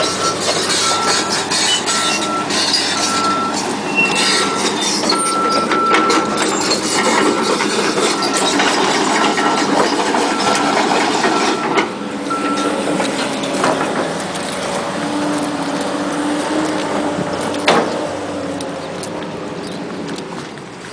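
Heavy construction machinery running with a backup alarm beeping a little more than once a second; the beeping stops a little over halfway through and the engine noise carries on. A single sharp knock comes near the end.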